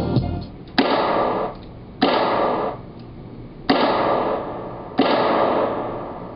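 Single sampled percussive hits played from a MIDI keyboard through studio monitors: four sudden cracks at uneven spacing, each dying away over about a second.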